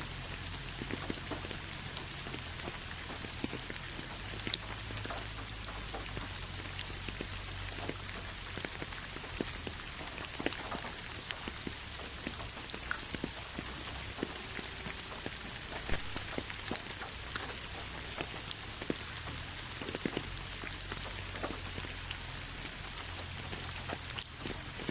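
Steady rain, with many individual drops tapping irregularly.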